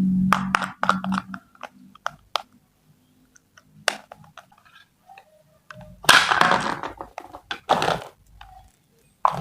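Plastic toy kitchen pieces being handled: a low steady hum that stops about a second in, scattered sharp clicks and taps, then two rasping, crinkling noises about a second long and a short one at the end.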